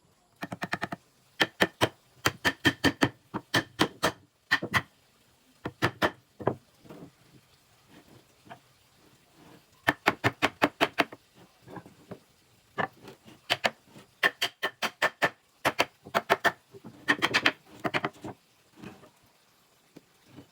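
Rapid bursts of sharp taps or knocks, several strikes in quick succession, then short pauses, each strike ringing briefly.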